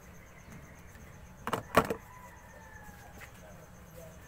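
A quick cluster of three or four sharp clicks or knocks about a second and a half in, close together, over a faint steady background.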